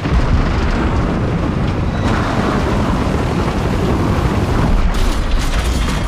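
A loud, continuous low rumble, explosion-like, that starts abruptly and holds steady, as a film action-scene sound effect.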